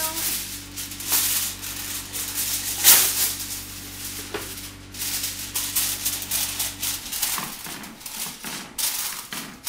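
Aluminium foil crinkling and rustling in irregular bursts as it is pressed in to line a baking pan. A steady low hum runs underneath and stops about seven seconds in.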